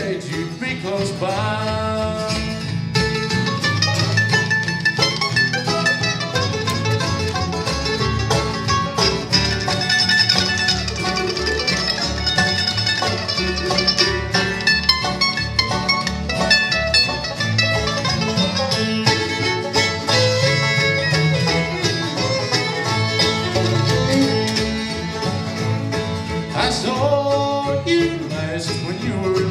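Live bluegrass band playing an instrumental break: fast banjo and guitar picking over a steady bass line. A sung line trails off just after the start, and the singing comes back in near the end.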